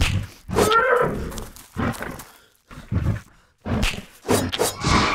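Sound-effect monster roars, the Jabberwock, in several short, sudden bursts with brief gaps between, as it is fought with a sword.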